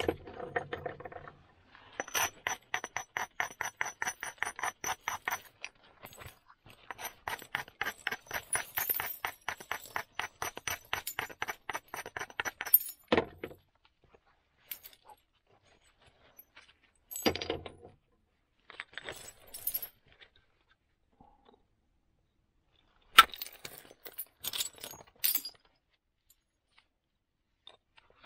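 Flint axe blank being worked at the edge with a small antler tool: two long runs of rapid light ticking and clinking, then a few separate sharper clicks in the second half.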